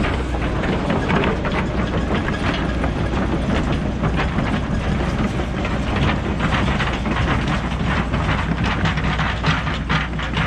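Cat 314E excavator's diesel engine running steadily under a rapid, irregular metallic clatter of clanks and scraping as the machine works over rock.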